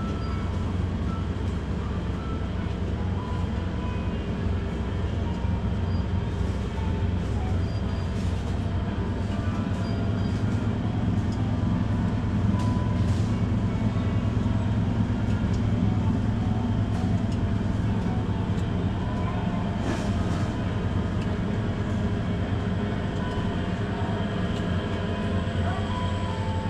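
Supermarket ambience: a steady low hum and rumble, with faint in-store music and a few light clicks.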